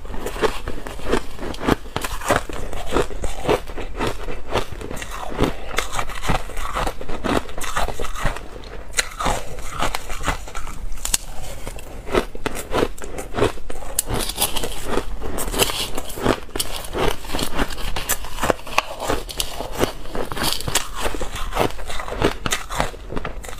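Close-miked chewing of crushed ice: a continuous run of crisp, irregular crunches and crackles as mouthfuls of icy granules are bitten and ground between the teeth.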